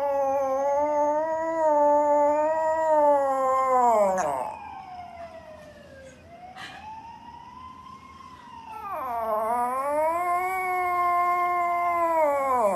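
Dog howling: a long, wavering howl that fades out about four and a half seconds in, a faint rise-and-fall howl after it, then another long howl from about nine seconds in that dips in pitch before it levels off.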